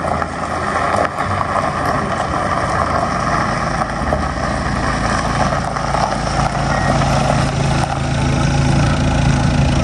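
Audi A6 saloon driving slowly up a gravel drive, its engine running steadily over the sound of its tyres on the gravel, growing a little louder as the car comes near.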